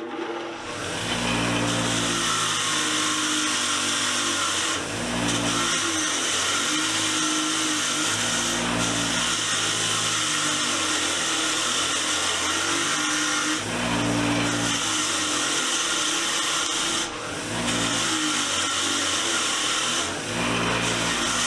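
A motor-driven machine running loud and steady, with a hum under a hiss, dipping briefly every few seconds.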